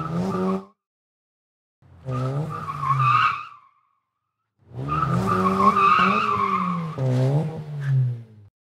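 A car's engine revving with its tyres squealing, in three bursts separated by short silences. The engine pitch rises and falls, under a steady high squeal. The longest burst starts about halfway through.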